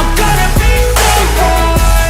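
Background music: an electronic pop/hip-hop instrumental with heavy sustained bass, gliding synth notes and a rising noise sweep.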